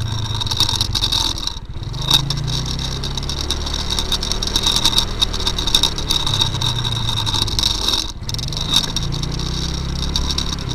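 Noisy rattling and scraping from an action camera's C-clamp mount shaking on a moving scooter, over the Yamaha Mio's single-cylinder engine running, its pitch rising and falling with the throttle. The noise dips briefly twice.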